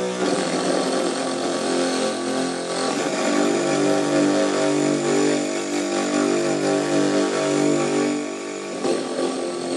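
Electric guitar played through a Korg G3 effects pedal, with a heavily driven tone on sustained notes that change every fraction of a second. There is a brief break near the end.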